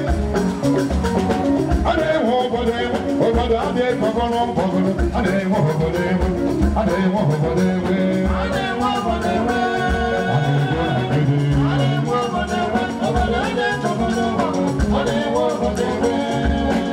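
Live highlife band music: electric guitars, bass and drum kit playing a steady, pulsing beat, with a voice singing over it.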